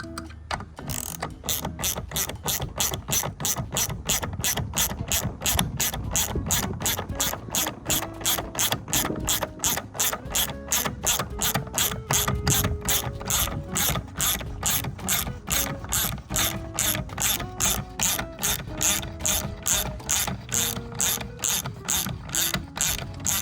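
Hand ratchet wrench clicking steadily, about three clicks a second, as a lock nut is run onto a bolt.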